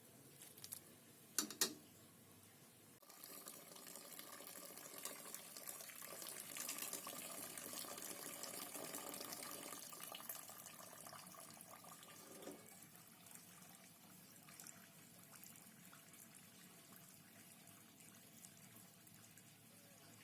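Kitchen tap running into a sink for about nine seconds, starting after a couple of sharp clicks and fading out about twelve seconds in.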